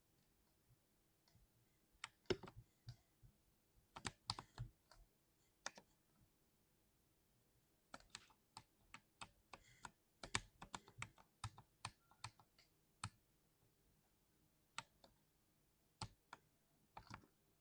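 Mechanical keyboard being typed on in short irregular bursts of keystrokes with pauses between, the longest run in the middle.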